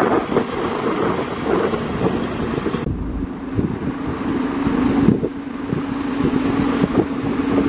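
Heavy wind buffeting the microphone over an Isuzu Giga truck's diesel engine running. A steady hum comes in about three and a half seconds in.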